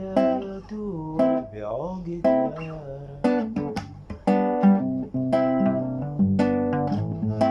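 Instrumental melody on a plucked string instrument, a line of separate notes, some bending in pitch, over a low bass, playing the tune of a traditional Sudanese song.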